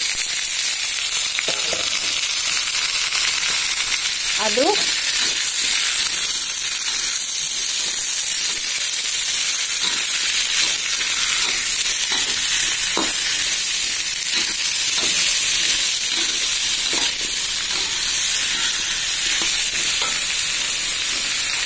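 Chopped cucumber sizzling steadily in hot oil in a wok as a metal spatula stirs it, with scattered light clinks and scrapes of the spatula against the pan.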